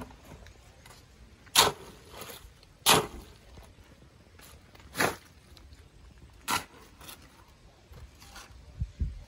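Sharp knocks at irregular intervals: four loud ones, about a second and a half, three, five and six and a half seconds in, with a few fainter ones between.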